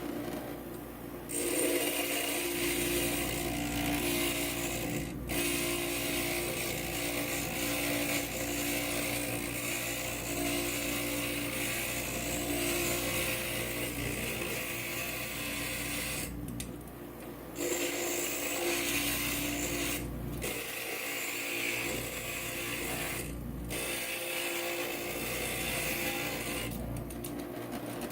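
Inland stained-glass grinder running steadily with a motor hum while a piece of glass is pressed against its grinding bit, giving a harsh grinding hiss. The hiss breaks off briefly several times as the glass is lifted off the bit to check its fit, while the motor keeps running.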